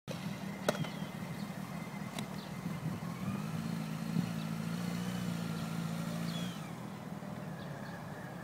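Motorcycle engine running at low speed as the bike is ridden slowly through a tight turn, with a steady engine note that drops in level about six and a half seconds in. Faint bird chirps and a couple of sharp clicks are heard in the background.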